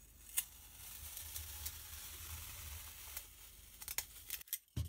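A thin flat blade slicing through a dome of kinetic sand across the rim of a glass, making a steady grainy hiss. There is a sharp click just after it starts and several more clicks near the end.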